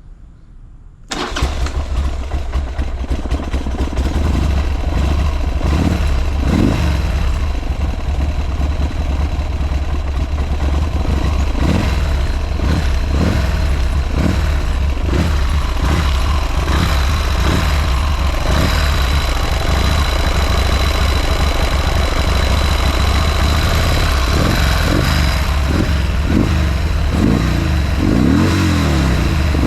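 Buell M2 Cyclone's air-cooled 1200 cc V-twin starting from cold, catching suddenly about a second in and then running steadily at idle with no unusual noises.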